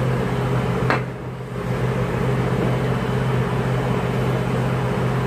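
Steady low mechanical hum, like a motor or fan running, with a single sharp click about a second in.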